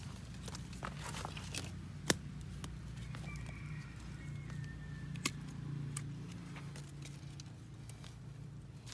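A few sharp, single knocks of wood as a thick cut root of a lộc vừng (Barringtonia) bonsai is worked at by hand, over a low steady hum. A rooster crows faintly in the distance partway through.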